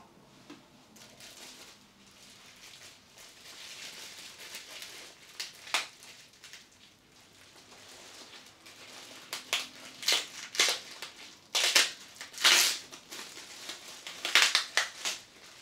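Plastic wrap crinkling and rustling as it is pulled and peeled off where it is taped to the packed prop. It comes in irregular crackly bursts that get louder and more frequent in the second half.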